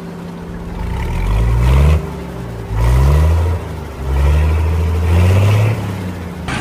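Homemade mini tractor's drive motor straining in about three surges, each rising in pitch, as the rear wheels spin in sand pulling a chained brick load.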